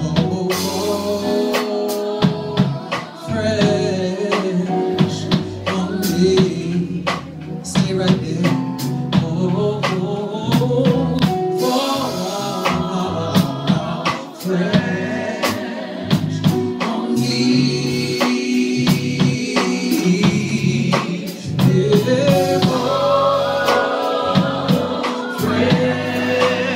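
A woman singing a soul/gospel-style song live into a microphone, backed by a band with a drum kit keeping a steady beat.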